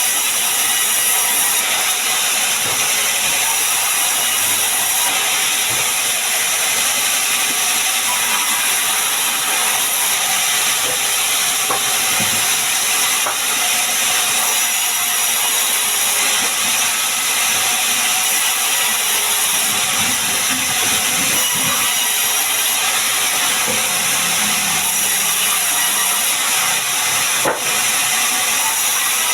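Sawmill saw and machinery running steadily while processing sengon timber: a loud, even noise strongest in the high range, with one sharp click near the end.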